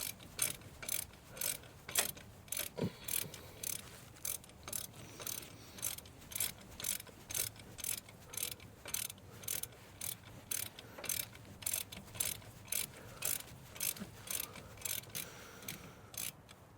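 Hand ratchet wrench clicking in a steady rhythm, about three clicks a second.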